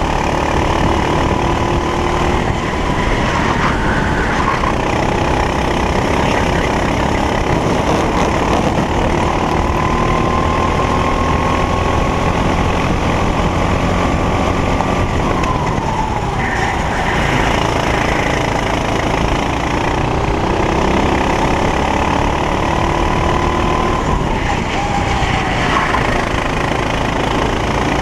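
Racing kart engine running hard, heard from on board the kart. Its pitch climbs slowly as the kart accelerates and drops sharply under braking, about halfway through and again near the end.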